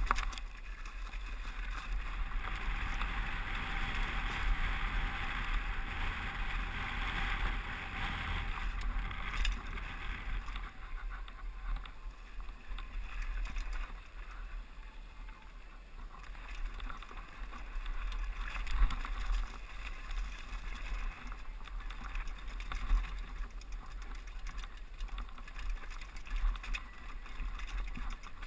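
Mountain bike descending at speed, heard from a helmet-mounted camera: tyres crunching over loose gravel and rock, with wind rushing and rumbling on the microphone. The hiss is loudest in the first several seconds on the gravel road, then eases, with scattered knocks and rattles as the bike hits rocks on the rough trail.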